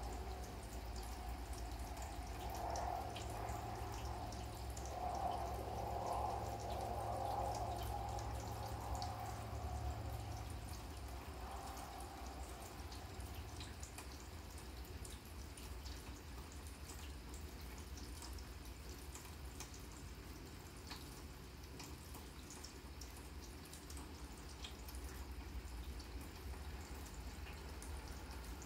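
Rain falling on a grass lawn, a steady hiss dotted with many small drip ticks. A wavering hum lies under it for roughly the first ten seconds and then fades away.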